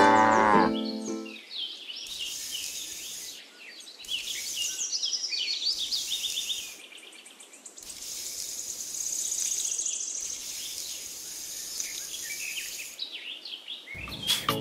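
Birds chirping and twittering with an insect trill, over a light steady hiss, after the tail of a musical phrase fades out in the first second. Sharp scraping clicks start near the end.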